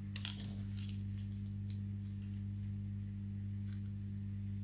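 A steady low hum with a few faint light clicks in the first couple of seconds.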